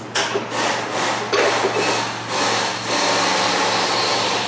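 Continuous rubbing and scraping, steadier from about a second in, over a steady low hum.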